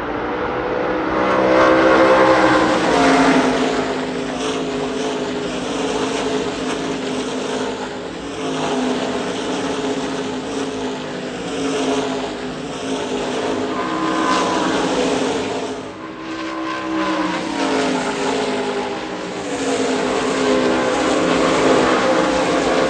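NASCAR Craftsman Truck Series race trucks' V8 engines passing at speed one after another, each pass rising and then dropping in pitch. The loudest pass comes a couple of seconds in, and others follow through the stretch.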